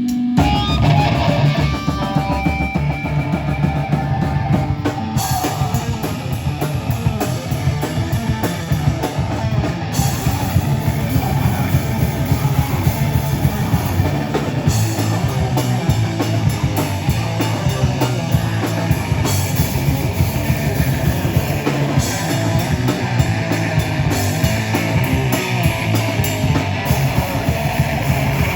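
Heavy rock band playing live and loud: distorted electric guitars, bass and drum kit, with the full band coming in right at the start after a single held note.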